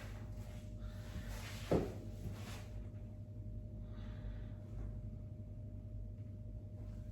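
A single short thump about two seconds in, within a brief breathy rustle, from a chiropractic adjustment thrust on a patient lying on the treatment table.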